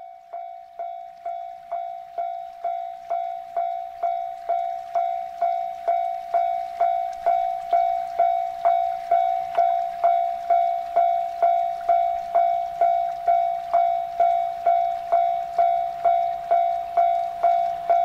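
Japanese level-crossing warning bell ringing: an electronic clang struck a little over twice a second, growing louder over the first few seconds and then holding steady. A faint low hum of the approaching train joins it about two-thirds of the way in.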